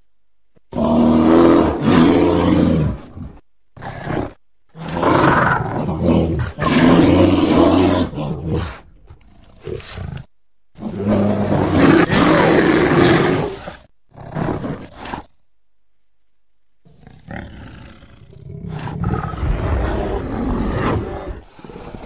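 American black bear growling in a series of loud, pitched growls lasting one to four seconds each, with short breaks between them. After a pause of about two seconds, quieter, rougher growling follows near the end.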